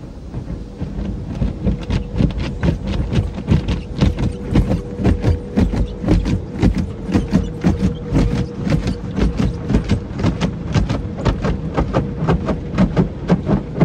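Spinning cloth brushes of a Belanger tunnel car wash slapping against the car's windshield and body in rapid, repeated slaps, several a second, heard from inside the car. A steady hum of the tunnel machinery runs underneath.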